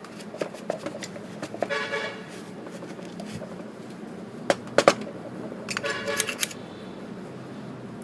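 Light clicks and knocks of tools and small brake parts being handled, with two brief pitched toots, one about two seconds in and one near six seconds.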